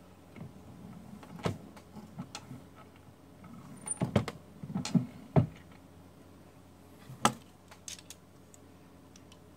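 Scattered metallic clicks, clinks and knocks of hand work at a single-stage reloading press: the seating die being adjusted, the press handle cycled to seat a bullet in a 224 Valkyrie case, and the loaded round handled. The knocks come in a cluster a little past halfway, with the loudest there, and a few more near the end.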